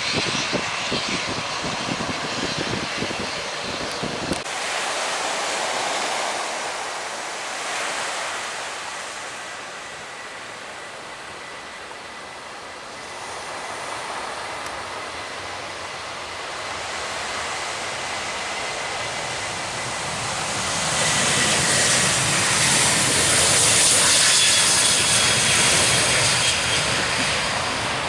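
Boeing 737 jet engines growing louder as the airliner comes in to land, loudest about three quarters of the way through, over a steady hiss of aircraft noise. Wind buffets the microphone during the first few seconds.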